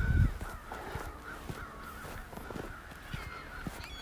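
Birds calling: a steady run of short, repeated calls.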